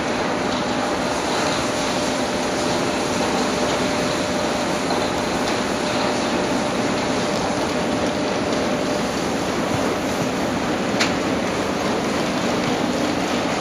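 Steady rushing background noise with a faint constant hum, and one brief click about eleven seconds in.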